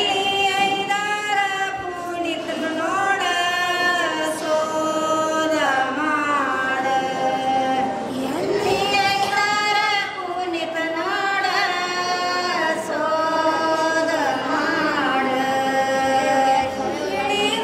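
Singing throughout, with long held notes that slide from one pitch to the next, at a steady level.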